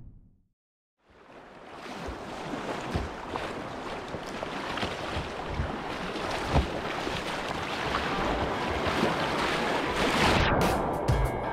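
Rushing, splashing whitewater, growing steadily louder, with a few sharper splashes. Music comes in near the end.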